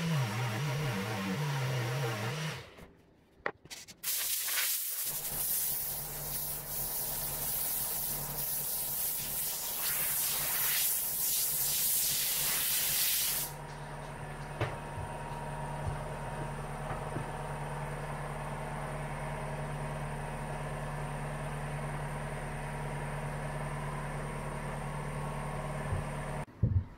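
A cordless orbital sander runs for about two and a half seconds and stops. About a second later a compressed-air blow gun hisses loudly and steadily for about ten seconds, blowing sanding dust off the engraved plywood. After it cuts off, a steady low hum with a faint high whine remains.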